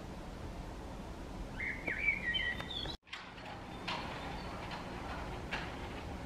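Male common blackbird singing one warbling phrase about a second and a half in, rising in pitch at its end. After a brief drop to silence, a few short chirps follow over a steady low background rumble.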